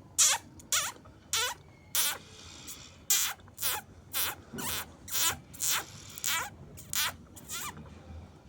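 Rapid high-pitched squeaking cries of a small young animal, about two short calls a second, each falling in pitch.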